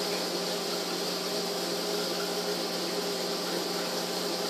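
Steady electric hum with an even hiss from a running aquarium pump, with no change in pitch or level.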